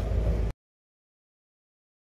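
Land Rover Defender 110's engine, a low steady rumble with some wind noise, cut off abruptly about half a second in, followed by dead silence.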